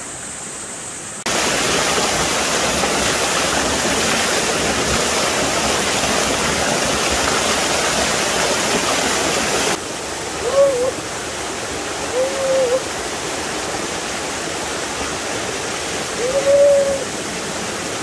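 Rushing water from a small waterfall and rocky mountain stream, a steady loud wash. It jumps louder about a second in and drops to a lower level abruptly just before halfway. In the second half, four short hoot-like tones sound over the water.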